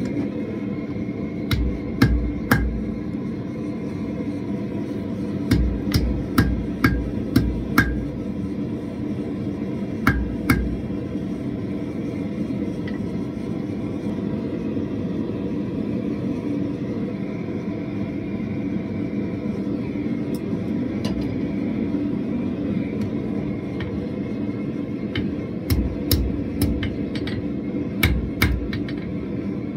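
Hand hammer striking hot steel on an anvil in short bursts of a few sharp, ringing blows with long pauses between, over the steady rushing noise of a running gas forge.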